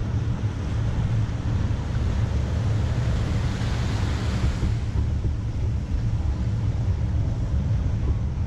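Wind buffeting the GoPro's microphone in a steady low rumble. A broad hiss swells and fades about three to five seconds in.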